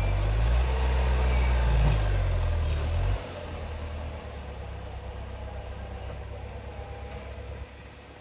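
LKT forestry skidder's diesel engine running hard while its winch pulls on a stump, then dropping abruptly to a quieter, lower running about three seconds in; the stump has not come out.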